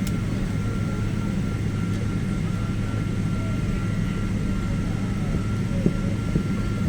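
Steady drone of an airliner's engines and airflow heard from inside the passenger cabin: a deep, even rumble with a thin constant whine above it.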